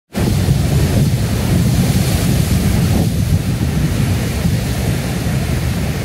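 Ocean surf breaking and washing over rocks, a continuous rushing hiss with a deep rumble, mixed with wind buffeting the microphone.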